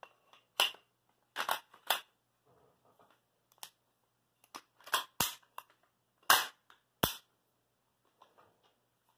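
AR-15 rifle's action worked by hand: about eight sharp metallic clacks of the charging handle, bolt carrier and bolt catch, spread unevenly over some seven seconds, the loudest about six seconds in. It is being cycled to chase a fault that the owner suspects lies in the bolt carrier or the bolt release.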